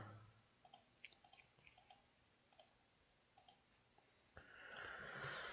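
Faint clicks of a computer mouse or laptop touchpad button, several quick pairs of press-and-release clicks, then a soft hiss near the end.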